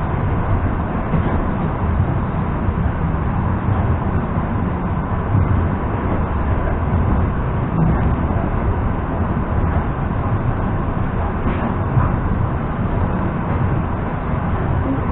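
Steady low rumble of an EP2D electric multiple unit running between stations, heard from inside the passenger car: wheels on the rails and the car body.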